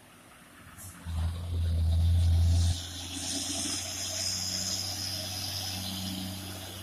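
Heavily loaded Mitsubishi truck's diesel engine labouring as the truck passes close by, too heavy to pick up speed. The deep rumble swells to its loudest for about a second and a half, then drops back to a steady lower drone with a high hiss coming in over it.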